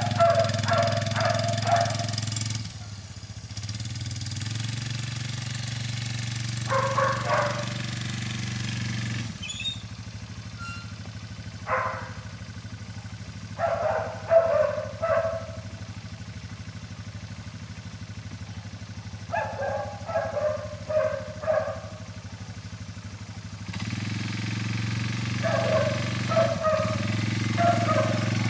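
ATV (quad bike) engine running as it drives around. It is louder near the start, drops for a stretch, and comes up again near the end. Several short clusters of brief vocal sounds break in over the engine.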